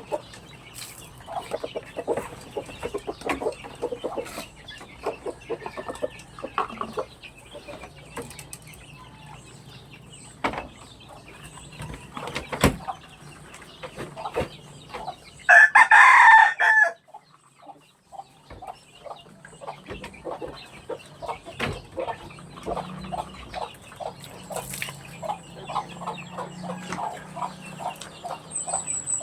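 Backyard chickens clucking, with many small clicks and calls, and a rooster crowing once loudly about halfway through.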